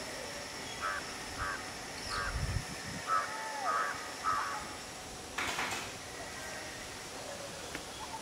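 A bird calls six times in short bursts over about three and a half seconds. A brief noisy burst follows about five and a half seconds in.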